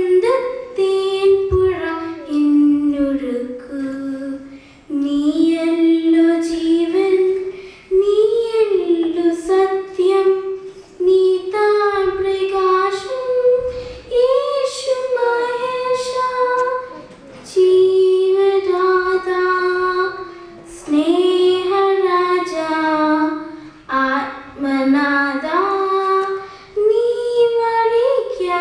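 A young girl singing solo and unaccompanied, a slow melody in phrases with held, gently wavering notes and short breaths between them.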